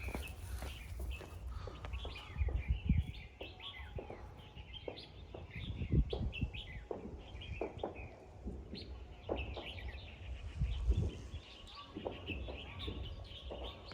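Small birds chirping repeatedly, short high calls throughout, with a few low thuds about three, six and eleven seconds in.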